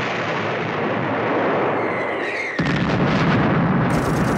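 Heavy artillery fire and shell explosions in a dense, unbroken rumble of battle noise, with a brief whistle near the middle. About two and a half seconds in it turns heavier and deeper.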